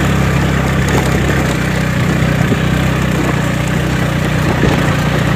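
Antoq 125 scooter engine running steadily under way on a rough dirt track, with a few light knocks as the scooter goes over bumps.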